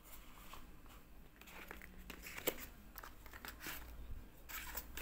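Light rustling and knocks of small cardboard boxes being handled and moved about, with one sharp tap about two and a half seconds in and busier rustling near the end.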